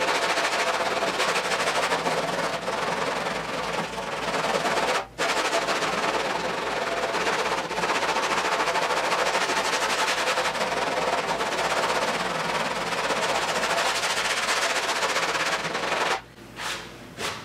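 Hand block sanding: coarse 40-grit sandpaper on a long sanding block scraping back and forth over body filler on a car's rear hatch panel, in rapid continuous strokes. The sanding breaks off briefly about five seconds in and stops a little before the end.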